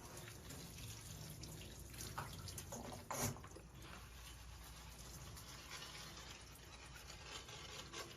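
Faint water trickling and dripping in a small, echoing room, with a couple of short knocks, the louder one about three seconds in.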